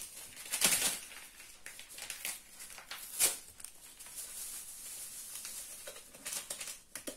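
Faint kitchen handling sounds: soft rustles and light knocks of ingredients and a mixing bowl being handled. The two loudest come about a second in and about three seconds in, and there are a few more near the end.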